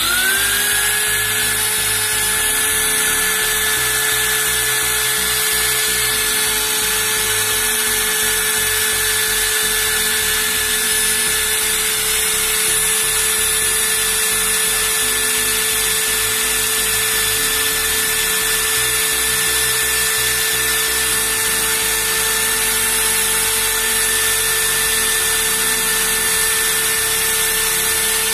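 Corded angle grinder's electric motor switched on, spinning up within about a second and then running at a steady speed with an even whine, on its test run after the armature restoration.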